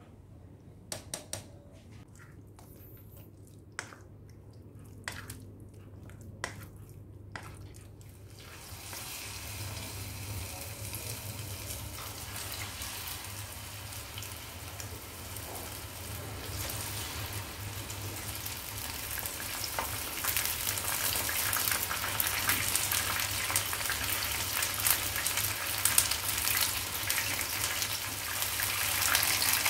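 A wooden spoon knocks against a stainless steel bowl a handful of times while mixing chicken pieces with flour and egg batter. About eight seconds in, battered chicken pieces deep-fry in hot oil with a steady crackling sizzle that grows louder in the second half.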